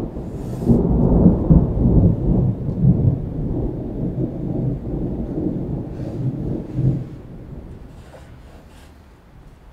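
Close thunder overhead: a long, low rumble that swells in the first couple of seconds, rolls on for about seven seconds, then dies away.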